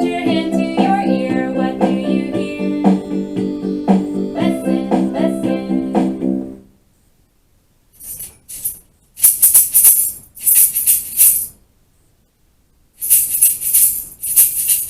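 A children's song with singing and instrumental backing ends about six and a half seconds in; after a short pause a tambourine is shaken in two bursts of bright jingling, the second near the end.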